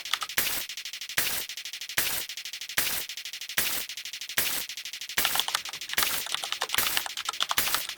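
A fast, rattling run of short clicking sound effects, with a louder sharp hit repeating about every 0.8 seconds.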